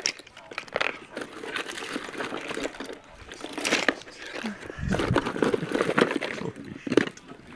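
Handling noise: crinkling, rustling and knocking as things are moved about and rummaged through, busiest a little past the middle.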